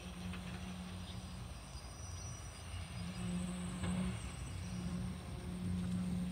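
An engine running steadily with a low hum, growing louder about halfway through.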